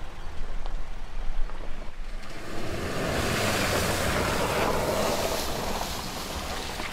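Pickup truck driving through a shallow stream: a low rumble, then from about two and a half seconds in a long rushing splash of water thrown up by the wheels, which slowly dies away near the end.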